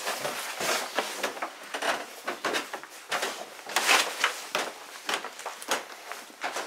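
Footsteps going up a staircase and along a floor, a quick uneven series of knocks and thuds, about two or three a second, mixed with camera handling noise.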